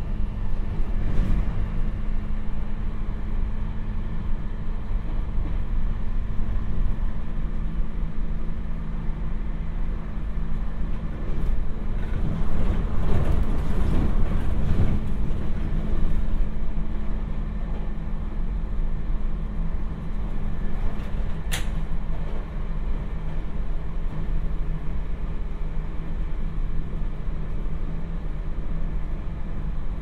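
Running noise inside a JR Hokkaido 721 series electric train under way: a steady low rumble of wheels on rail with a constant hum underneath. It grows louder and rougher for a few seconds midway, and a single sharp click comes about two-thirds through.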